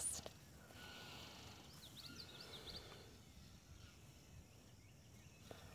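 Near silence: faint outdoor ambience, with a few faint high chirps about two seconds in.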